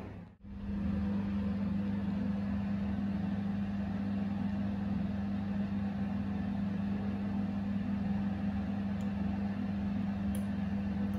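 A steady motor hum with a hiss over it, broken by a brief dropout just after the start.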